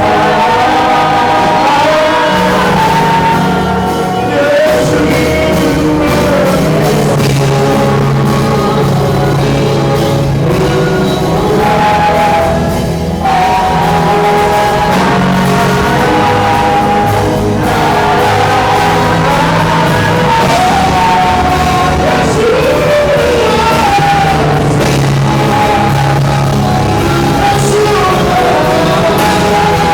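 Live worship music: a lead singer holding and sliding long sung notes over a full band with a steady bass line, loud throughout.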